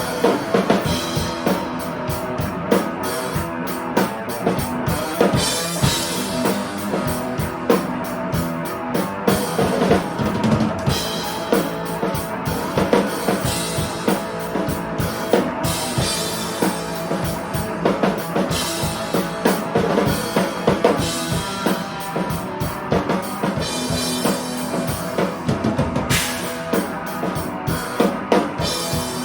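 Live rock band jam with the drum kit out front: bass drum and snare hits driving a steady beat under pitched instruments.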